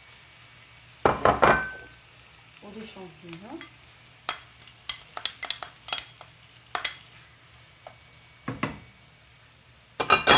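Bowl and utensil clattering against a frying pan as diced chicken breast and mushrooms are tipped in over frying onions: loud knocks about a second in and again near the end, with a run of lighter clicks and scrapes in between.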